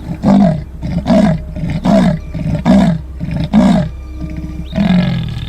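Leopard roaring: a series of rasping, sawing strokes, five in quick even succession about a second apart, then a longer one near the end.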